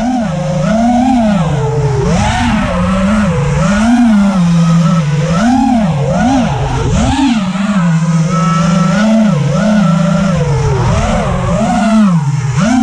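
Racing drone's electric motors whining as the throttle is blipped, the pitch swooping up and down about once a second, with a steadier stretch a little past the middle.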